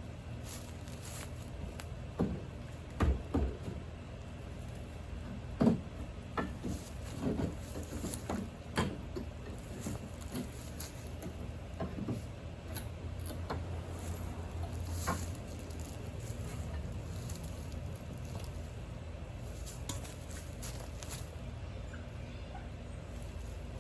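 Demolition of a doggy door and torn screen from a porch screen: irregular knocks, taps and rustling, busiest in the first half, with the sharpest knock about six seconds in, then only a faint steady background.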